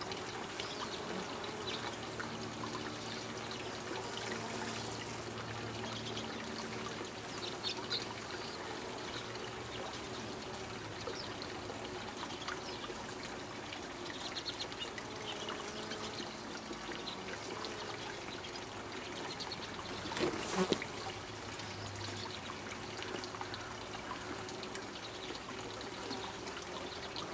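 Honeybees buzzing at the hive entrance: a low wing hum from bees flying in and out, swelling and fading as they pass, over a steady hiss. A short louder burst about twenty seconds in.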